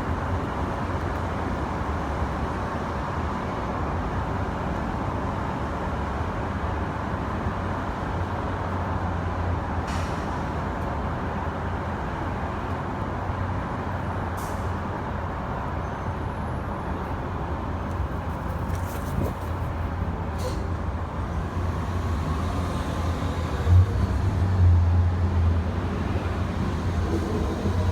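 A steady low background rumble with a few faint sharp clicks scattered through it; the rumble swells louder near the end.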